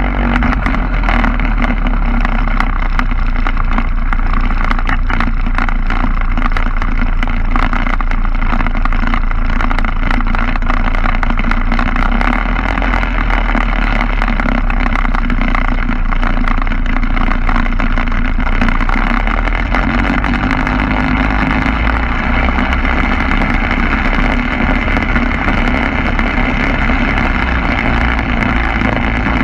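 Quicksilver MX ultralight's engine and propeller running steadily, with wind buffeting the microphone. The engine note changes about two-thirds of the way through.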